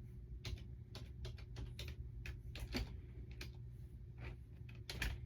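Typing on a computer keyboard: irregular sharp key clicks, a few a second, with short pauses.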